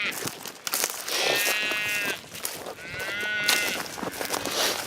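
Calves bawling: a drawn-out, high-pitched call about a second in and a shorter one about three seconds in.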